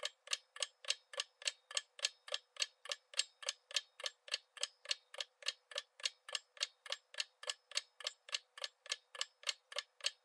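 Clock-ticking sound effect for a quiz countdown timer: short, even ticks at about three and a half a second.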